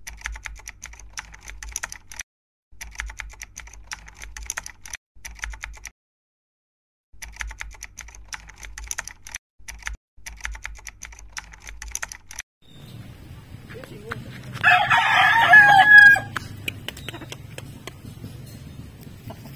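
A keyboard-typing sound effect in several bursts of quick clicks with short pauses. Then a gamecock rooster crows once, loudly, about fifteen seconds in.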